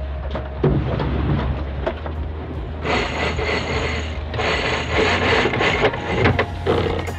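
Sailboat sheet winch being cranked with a winch handle while the sheet is hauled in on a tack: a few knocks first, then two long runs of rasping ratchet clicking. A steady low hum runs underneath.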